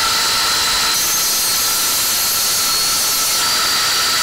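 DeWalt 60V circular saw with a Diablo Steel Demon cermet metal-cutting blade at full speed, cutting through 1/16-inch square steel tubing: a loud, steady whine with a hissing edge.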